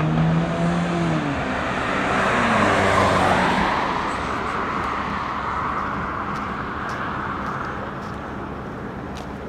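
A car driving past on the street: engine and tyre noise grow to a peak about three seconds in, then fade away as it moves off.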